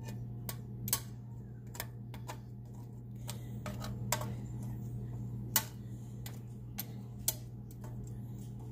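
Stainless steel tongs clicking and tapping against a glass baking dish as short ribs are shifted around in it: irregular clicks about twice a second, the sharpest a little past halfway, over a steady low hum.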